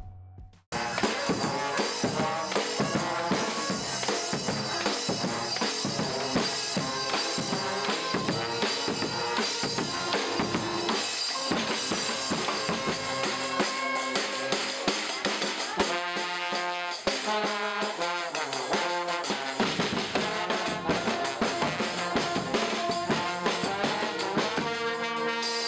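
Street brass band playing, with trombones, trumpet and sousaphone over a steady beat on a bass drum. The music starts about a second in.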